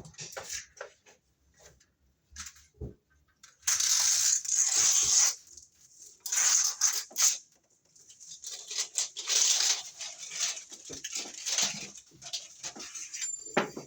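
Rustling and crinkling from plastic raceway parts being handled, in three bursts with small clicks between.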